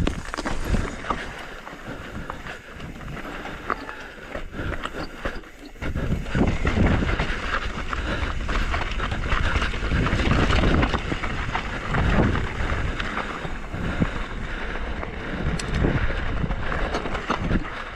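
Wind buffeting the camera microphone over the rumble and rattle of a mountain bike rolling over rocky trail, growing louder about six seconds in.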